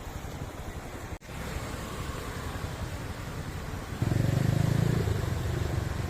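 A motor vehicle engine running with a steady low rumble. It cuts out for an instant just over a second in, then gets noticeably louder and deeper from about four seconds in.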